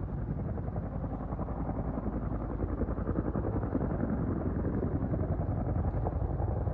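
Boeing CH-47 Chinook's twin tandem rotors beating rapidly as the helicopter comes in low to land, a deep, steady chop that grows a little louder about halfway through.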